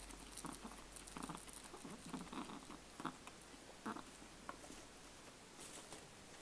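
A pet eating, making irregular short chewing and clicking noises, the odd sounds it makes while feeding.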